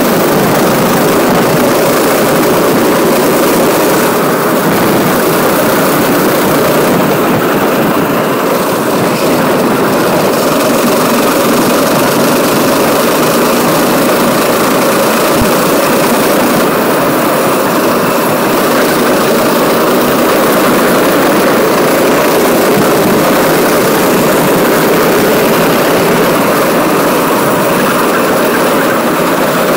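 Go-kart engine running steadily at racing speed, heard loud from on board the kart.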